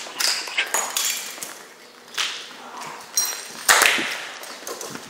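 Hurried footsteps and scuffing on a hard floor, a string of uneven knocks and scrapes, with the loudest thud about three and a half seconds in.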